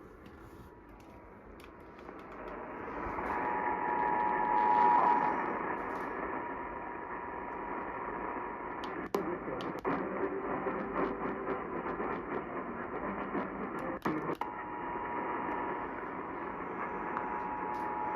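Weak, hissy radio reception with the Emergency Alert System's two-tone attention signal coming through faintly under the static, strongest about three to five seconds in and again near the end. A few sharp clicks break the static about nine and fourteen seconds in.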